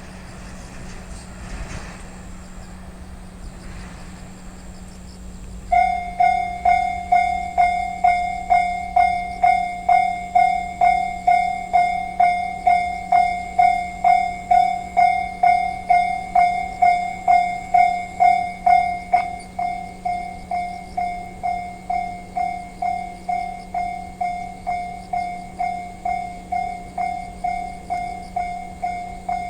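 Japanese railway level crossing warning bell starting to ring about six seconds in: a steady, evenly repeated electronic clang, about two strikes a second. It becomes noticeably quieter about two-thirds of the way through.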